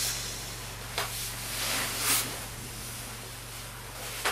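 Rustling of a padded jacket and bedding as a person climbs down from a wooden top bunk, with a single sharp knock about a second in and a steady low hum underneath.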